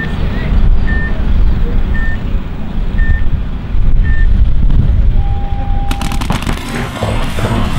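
Paintball game start: five short electronic countdown beeps, one a second, then a longer, lower start tone about five seconds in, followed at once by rapid fire from several paintball markers as the players break out. A heavy low rumble runs underneath.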